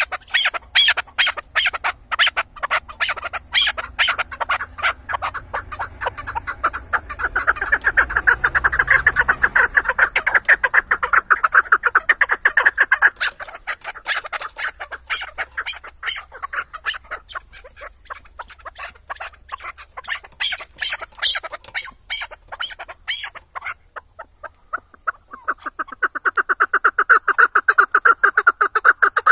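Chukar partridge calling: a long, rapid string of repeated clucking notes, several a second. It falls quiet briefly near the end, then starts up again.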